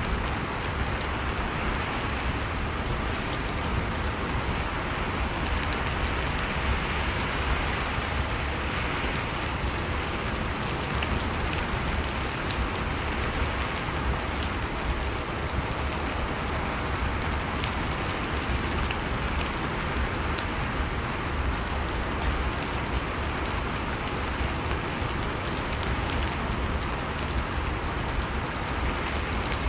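Steady rain falling, with a dense, even hiss and scattered drop ticks.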